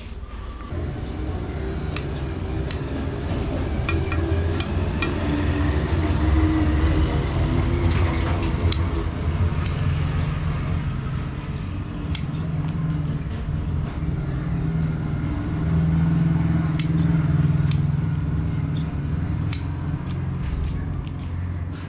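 Hand shears snipping through leather: scattered sharp clicks of the blades closing at irregular intervals, over a loud, steady low rumble.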